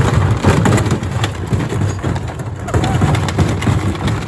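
Gorenje SensoCare washing machine running with heavy bricks loose in its drum: loud, continuous banging and rattling as the bricks tumble and the machine shakes itself apart.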